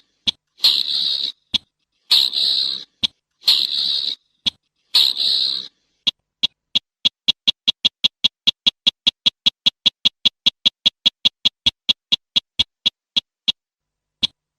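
Slaty-breasted rail calling: four harsh, scratchy calls of under a second each, then a long rapid series of short ticking notes, about five or six a second, that fades out before the end.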